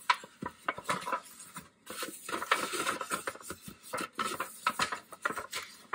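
Disposable aluminium foil baking pan crinkling and flexing as a paper towel wipes oil over its bottom and sides, with irregular crackles and scrapes.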